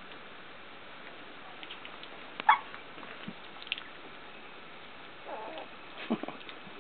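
Sixteen-day-old puppies squeaking as two of them mouth at each other: one sharp squeak about two and a half seconds in, then softer whines and a short squeak near the end.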